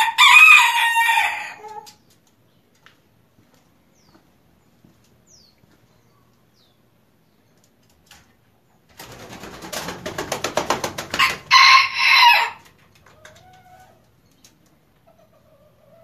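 Bantam rooster crowing at the start. About nine seconds in comes a quick flurry of wing beats, growing louder and running straight into a second, shorter crow.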